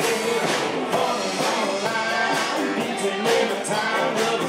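Live country band playing amplified music: electric guitars, bass and drums, with a singer.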